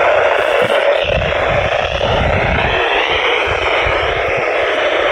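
Weather radio receiver hissing with steady static from a weak NOAA Weather Radio broadcast. Low rumbling bursts come between about one and three seconds in.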